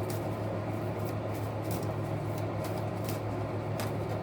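Tarot cards being shuffled and handled, a few soft, irregular card clicks and flicks over a steady low hum.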